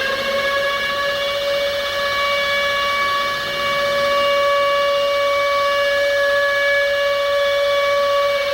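Civil defense warning siren sounding one steady, loud tone. It has wound up just before, holds its pitch, and begins to wind down at the very end.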